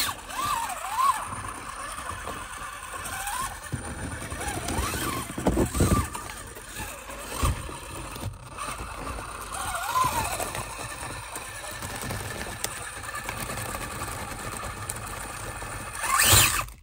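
Axial SCX24 micro RC crawler's brushless motor whining in short bursts that rise and fall in pitch with the throttle. Scattered knocks of the tyres and chassis on the rock course come through, and there is a louder rush of noise just before the end.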